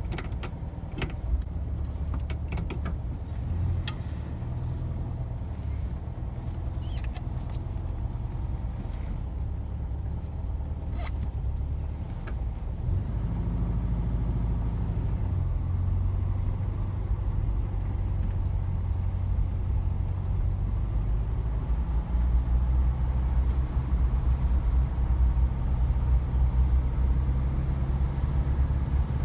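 Air-cooled Volkswagen Beetle Type 1 flat-four engine running while the car is driven, a low steady drone whose pitch shifts in steps a few times. It gets louder about halfway through and again near the last quarter, with a few light clicks early on.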